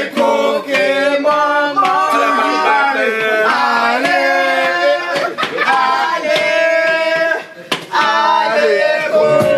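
Several voices singing a song together, with a few sharp claps or slaps.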